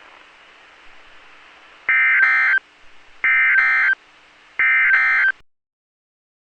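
Three short bursts of NOAA Weather Radio EAS/SAME digital data tones, about a second apart, over faint radio hiss. This is the End of Message (NNNN) code that closes the Required Weekly Test. The audio cuts off suddenly after the third burst.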